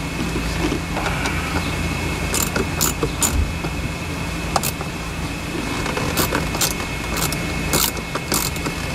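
Socket wrench and small metal parts clicking and clinking irregularly as the 7 mm bolts holding a blower motor resistor are worked loose under a car's dashboard, over a steady background hum.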